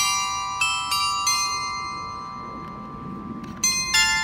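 Set of bronze bells on a stainless-steel sculpture tower chiming a tune. Two notes are struck near the start, about half a second apart, each ringing on long. Then comes a pause with the tones fading, and a quicker run of notes begins about three and a half seconds in.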